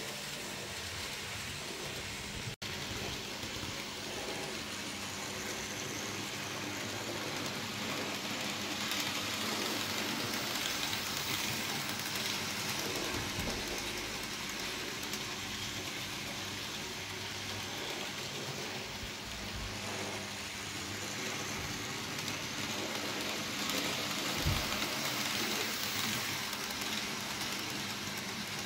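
N gauge model train running on the track: a steady whirring hiss of the small motor and wheels rolling on the rails, swelling a little at times as it passes closer.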